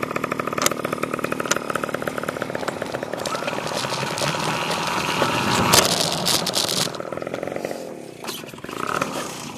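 Dirt bike engine accelerating hard, building to a peak about six seconds in with rushing wind noise on the handlebar-mounted phone. The throttle then closes and the engine drops back, picking up again near the end.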